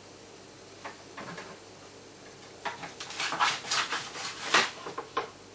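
Kitchen items being handled on a worktop: a few light knocks, then a busier run of sharp clattering knocks from about three seconds in.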